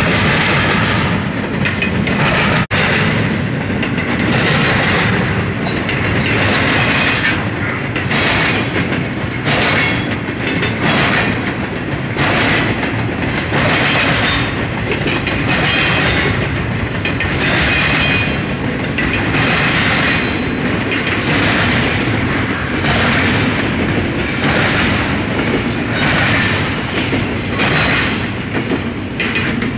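Double-stack intermodal freight train's well cars rolling past, their wheels clicking over the rail joints in a steady rhythm roughly once a second, over a continuous rumble and rattle.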